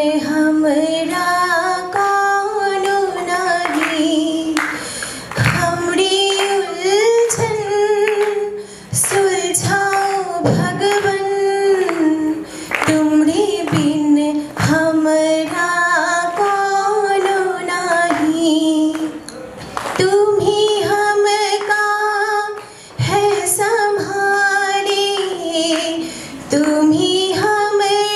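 A woman singing a melodic song solo into a handheld microphone, holding long notes that bend up and down in pitch, with short breaks between phrases.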